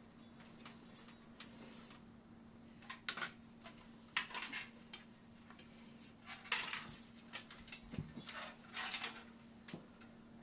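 Hands working on a desktop computer's parts: scattered small clicks, taps and rustling of plastic and metal being fitted, over a faint steady hum.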